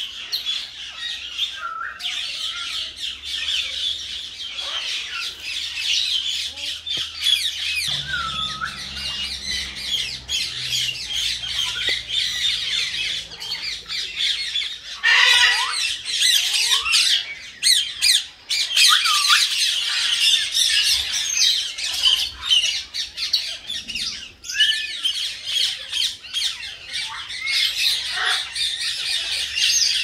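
Common mynas squawking and chattering, many harsh calls overlapping, with the loudest squawks about halfway through.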